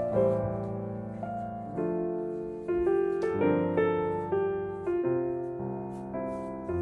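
Background piano music: a gentle melody of single notes, each struck and then fading.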